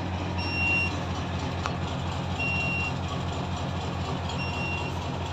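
Ten-wheeler truck's diesel engine idling, with three short high beeps about two seconds apart from the cab's low-air-pressure warning while the air tanks build pressure.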